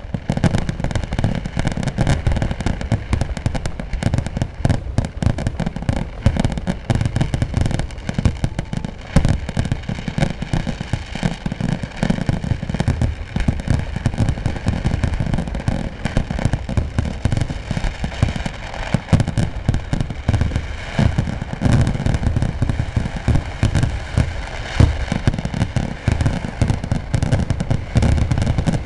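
Temple-festival fireworks: a nonstop barrage of firecracker and fireworks explosions, bangs following one another many times a second without a break.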